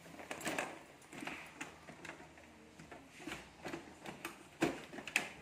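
Scattered plastic clicks and knocks from an Epson L3210 printer's housing as its top section is handled and pressed into place, with two sharper knocks near the end.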